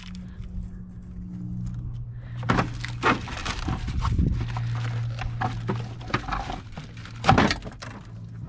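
Hands working on car parts: rustling and light knocks, with one louder thunk about seven seconds in, over a steady low hum.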